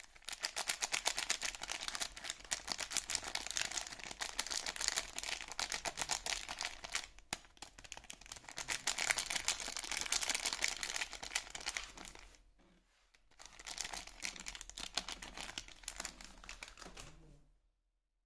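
Soap packaging crinkling as it is handled and unwrapped: a dense crackle for about twelve seconds, a short pause, then a few more seconds of crinkling before it stops.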